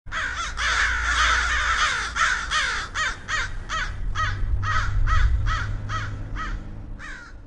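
Crows cawing: several birds calling over one another at first, then a run of single caws about two or three a second that grow fainter near the end, over a low rumble.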